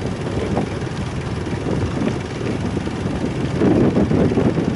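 Motorboat engine running, with wind buffeting the microphone; the rumble grows a little louder in the second half.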